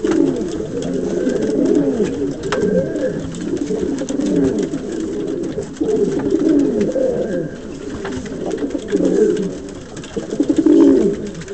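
Domestic pigeon cooing over and over, a run of low, rolling coos in repeated phrases: the courtship cooing of a cock bird displaying with its neck puffed out.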